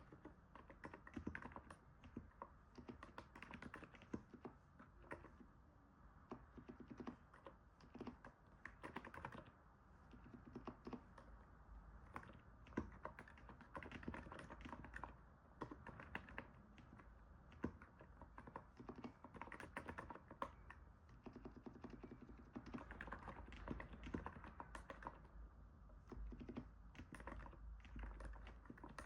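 Quiet, continuous typing on a NiZ 68 Pro electrostatic capacitive keyboard: a steady, irregular stream of soft keystrokes, a sound likened to stepping on snow.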